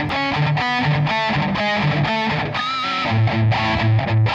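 Background music: guitar notes plucked in a steady rhythm, with one wavering held note about three seconds in.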